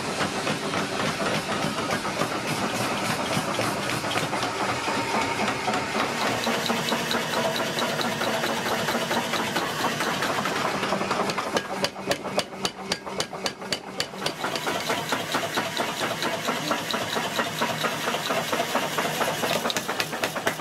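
Mechanical power hammer running and pounding with rapid, even blows over a steady machine hum, as a red-hot steel blank is forged between its dies. A little past the middle the separate blows stand out more sharply for a couple of seconds.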